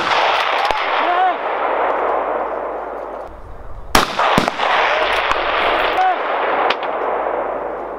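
Precision rifle shot about four seconds in, with a second sharp crack about half a second after it. Each crack is followed by a long rolling echo that fades over a few seconds, and the echo of a shot fired just before is still dying away at the start.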